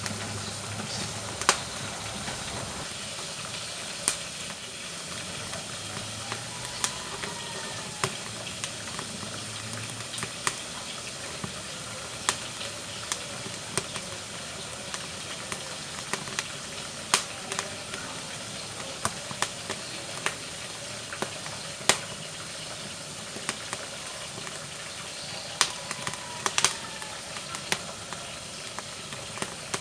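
Firewood burning in a wood-burning stove, crackling: a steady hiss of flame with irregular sharp pops and snaps, a few of them louder.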